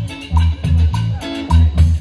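Live band music: an instrumental passage with bass, drum kit and hand percussion on a steady dance beat.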